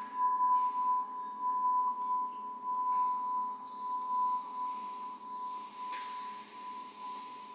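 Tuned metal pipe ringing on after being struck: one steady high tone that slowly fades, with a fainter higher overtone dying away in the first couple of seconds.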